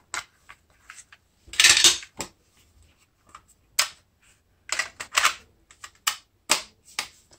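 A plastic cassette case clicking open and a cassette being handled and loaded into a Sony Walkman DD cassette player, with sharp plastic and metal clicks as the player's cassette door is opened and snapped shut. The loudest sound is a short scraping rattle about one and a half seconds in.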